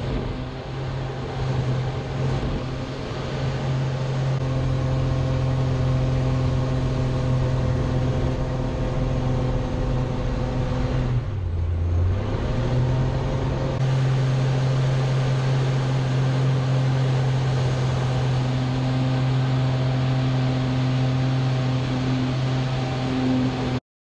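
Light aerobatic plane's engine heard from inside the cockpit, a steady drone; about eleven seconds in the pitch drops and the sound thins for a second or two before power comes back up. Cuts off abruptly near the end.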